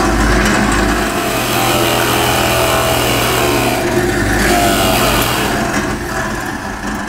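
Drill press running with a 1-inch Forstner bit boring a hole through a wooden board, a steady motor hum under the noise of the cutting. It eases off near the end.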